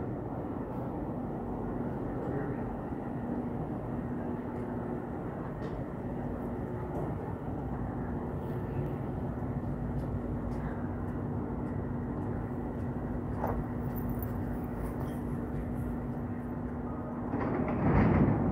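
Subway station platform ambience: a steady low rumble with a faint constant hum, swelling suddenly louder near the end as a train approaches the platform.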